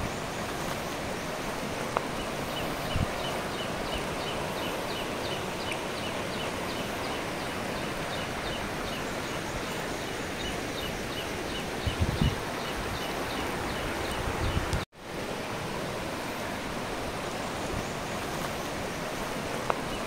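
Steady rush of falling water from a waterfall, with a rapid series of high chirps, about three a second, over it for the first several seconds. A couple of low thumps come shortly before the sound briefly cuts out about 15 seconds in.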